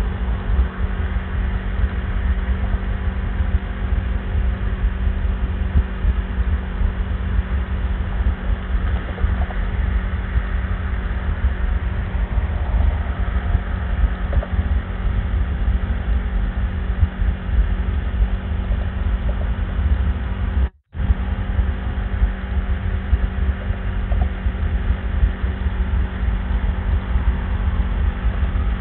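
2016 Kawasaki Ninja 650's parallel-twin engine running steadily at highway cruising speed, a steady drone mixed with low wind and road rumble, heard through a helmet Bluetooth headset microphone that leaves no high end. The sound cuts out for a moment about 21 seconds in.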